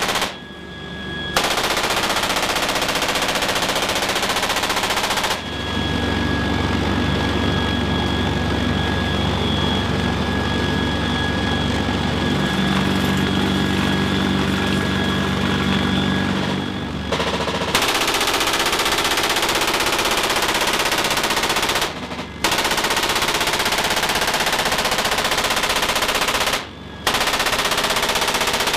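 GAU-21 .50-caliber machine gun firing long, sustained bursts from the rear ramp of a CH-53K King Stallion helicopter, with short breaks in the fire about a second in, around two-thirds of the way through and near the end. A heavy low helicopter drone lies under the fire through the middle stretch.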